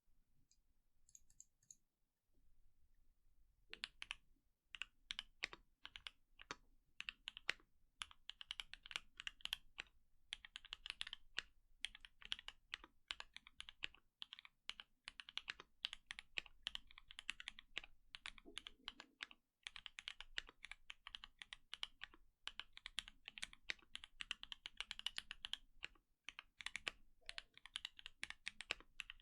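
Typing on an Ai03 Vega custom mechanical keyboard: H1 switches, spring-swapped to 68 g and lubed with Krytox 205g0, in an aluminium plate, under GMK keycaps. Steady fast keystrokes start a few seconds in, with a couple of short pauses.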